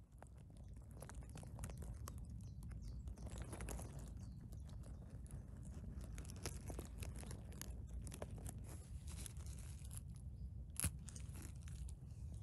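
Crackling, rustling and tearing of needle litter, twigs and moss as a hand reaches into the forest floor and picks a chanterelle mushroom, with one sharp snap near the end, over a low rumble.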